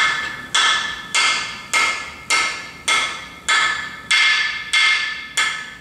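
Hammer tapping a small freeze plug into a Ford 351 Windsor engine block: ten even, light strikes about every 0.6 s, each ringing briefly.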